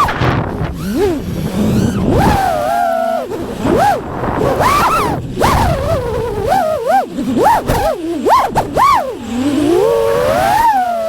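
FPV freestyle quadcopter's motors whining, the pitch swooping up and down quickly and repeatedly as the throttle is punched and chopped.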